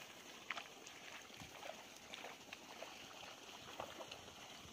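Faint footsteps wading through shallow water and mud, with scattered small splashes and sloshes.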